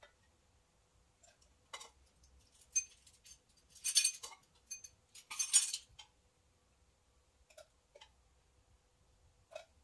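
A metal tablespoon clinking against clear measuring jugs as small amounts of water are spooned out: scattered light taps, with two brief louder clinks about four and five and a half seconds in.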